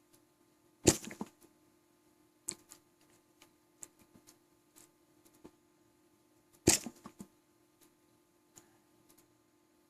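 A person hiccuping twice, about six seconds apart: each hiccup is a sudden sharp hic followed by a few smaller clicks.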